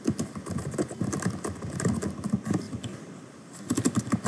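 Typing on a computer keyboard: a run of rapid keystrokes, a pause of about a second, then another quick burst of keystrokes near the end.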